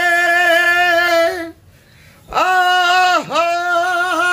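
A man singing unaccompanied on a long held 'laaa' vowel. The note breaks off about one and a half seconds in, and after a short pause a second long note starts with a quick dip in pitch and slide back up.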